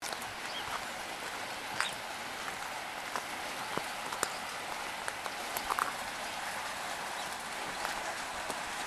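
Steady hiss of light rain, with scattered sharp ticks of drops hitting nearby surfaces.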